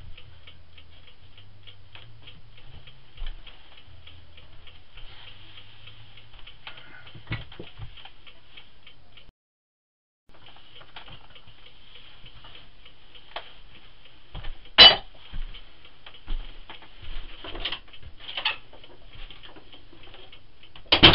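Rapid, even ticking, about four to five ticks a second, which breaks off for about a second in the middle. In the last few seconds several louder sharp knocks sound over it.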